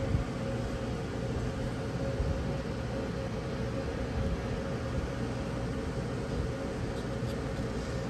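Steady low mechanical hum, with a faint constant whine above it, like a motor or fan running.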